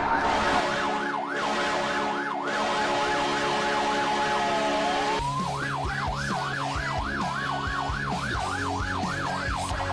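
Warbling siren wail, rising and falling about two to three times a second over a held low chord. About five seconds in, a drum beat comes in and the wail speeds up, as in a goal-celebration music track.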